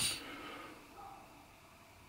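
Gas hiss from a small ceramic burner running on propane, swelling at the start and dying away within about half a second to a faint low hiss.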